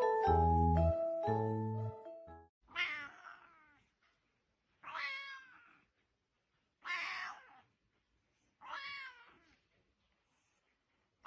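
Background music for about the first two seconds, then a cat meowing four times, each meow under a second long, about two seconds apart.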